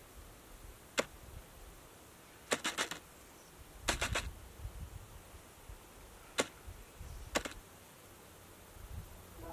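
Fishing reel clicking as line is retrieved: single sharp clicks and two short runs of rapid clicks, over a low rumble.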